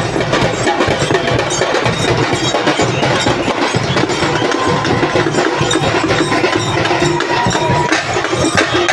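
A marching folk drum troupe playing a fast, dense beat on drums slung at the side, the strikes packed close together without a break. A thin high note is held for a few seconds in the middle.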